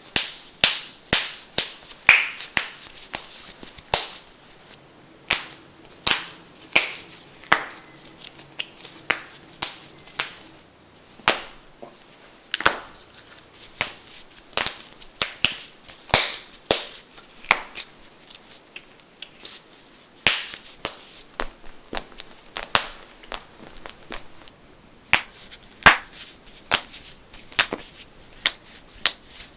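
Knuckles cracking: sharp pops one after another, some single and some in quick runs of two or three, with a couple of brief lulls.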